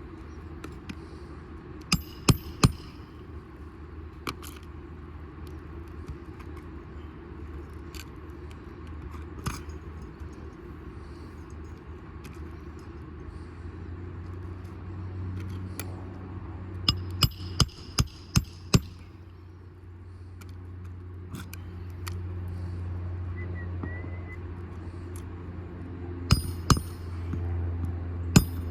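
Hammer driving roofing nails into a replacement shingle: three quick strikes about two seconds in, a run of five in the middle and a few more near the end. A steady low hum runs underneath.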